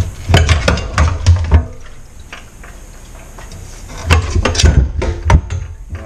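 Metal clanking and clinking from tools, bolts and a steel pump frame knocked against each other as the frame is unbolted and separated from the pump and motor. The knocks come in two bursts, one early on lasting about a second and a half and another about four seconds in.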